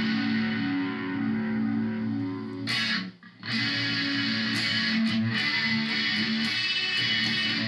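Electric guitar played through the Korg A5 multi-effects unit's chorus effect, sustained notes and chords with a brief break about three seconds in.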